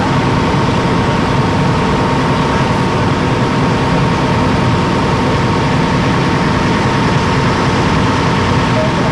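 Boat's engines running steadily under way: a constant loud drone with a fixed high hum over it.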